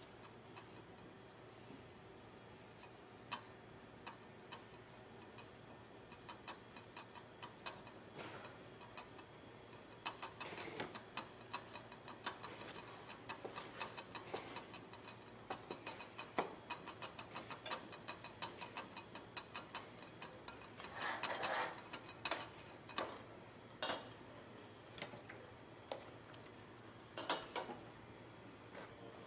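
Irregular light clicks and knocks of kitchen prep, as utensils and containers are handled, with two short scraping or rustling noises about ten and twenty-one seconds in, over a faint steady hum.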